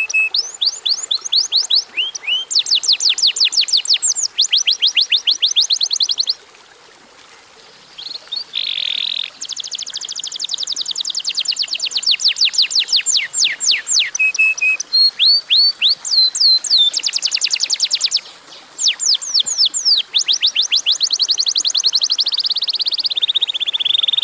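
Domestic canary singing vigorously in long, rapid trills of repeated, quickly falling notes, with short buzzy rolls mixed in. The song breaks off briefly about six seconds in and again about eighteen seconds in.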